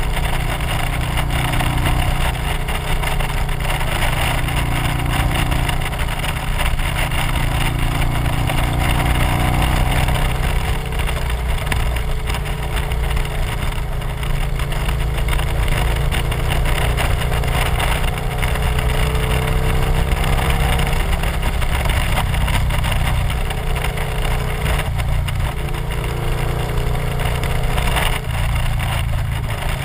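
Victory motorcycle's V-twin engine running at road speed, its note rising and falling with the throttle through the curves, under a steady rush of riding wind on the microphone.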